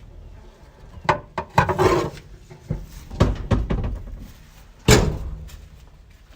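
A series of knocks and clanks from tools and parts being worked on a truck's drivetrain, several in quick succession, with the loudest, sharpest bang about five seconds in.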